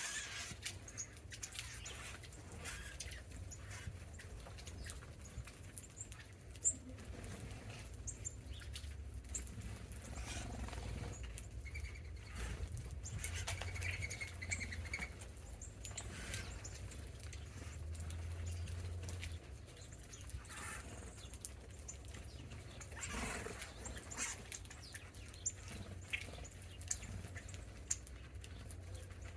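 Small backyard birds feeding in snow: occasional short chirps and calls, with many scattered light ticks and patters, over a steady low hum.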